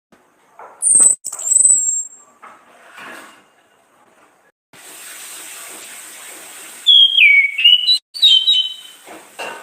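Orange-headed thrush (anis kembang) singing: a couple of sharp, very high whistled phrases about a second in, then a lower run of gliding whistles near the end. A steady hiss runs under the second half.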